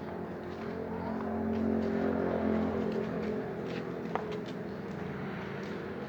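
A bus's diesel engine running with a steady low hum, growing louder for a couple of seconds and then easing off. A single sharp click about four seconds in.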